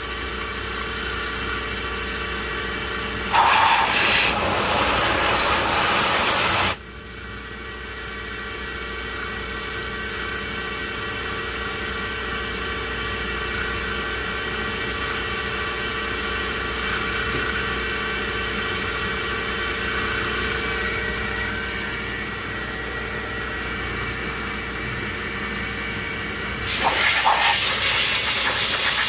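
CNC machining centre running, its spindle and end mill making a steady whine with a low hum, while milling countersunk holes through the case-hardened surface of a BMW crown wheel. Twice, about 3 s in and near the end, a loud hiss cuts in for about three seconds and stops abruptly.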